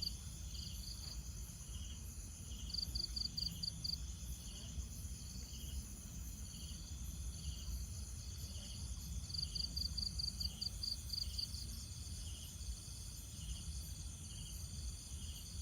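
Insects chirping in chorus: steady high trills with short chirps repeating about every 0.7 s, and now and then a quick run of rapid pulses. A faint low rumble of ambient noise lies underneath.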